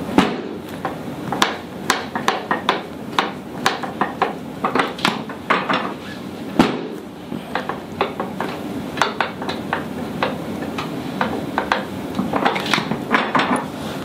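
Chiropractic drop table being set: a run of irregular metallic clicks and clunks from the table's levers and drop mechanism as the drop sections are cocked, with a sharper knock just after the start and another at about six and a half seconds.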